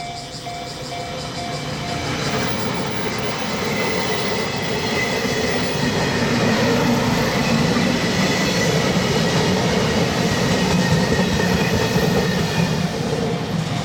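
A train passing over a level crossing, its running noise building from about two seconds in and staying loud. The crossing's warning bell rings in a steady clang, about three strokes a second, heard clearly at the start and then mostly covered by the passing train.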